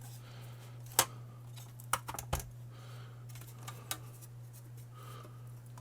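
Sharp clicks and knocks of console parts being handled and pressed into place during reassembly of an Xbox One S, four or five separate taps over a steady low hum.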